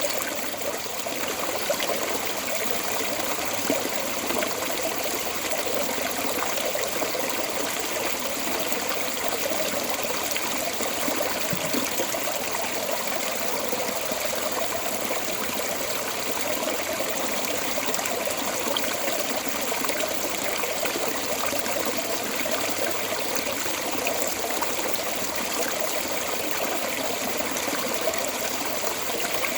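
Water flowing steadily out of a storm drain outlet, a continuous even splashing and trickling.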